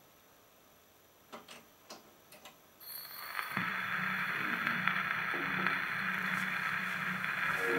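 A few light clicks from the gramophone's mechanism, then about three seconds in the needle goes down on the record and a steady surface hiss from the 78's lead-in groove plays through the EMG Xb's oversize horn before the music starts.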